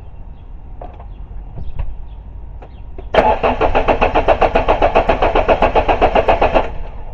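Volvo 480 ES 2.0-litre petrol four-cylinder engine cranking on the starter motor for about three and a half seconds in a fast, even rhythm without firing, then stopping, after a few faint clicks. It turns over but does not catch, which the owner suspects is a lack of spark.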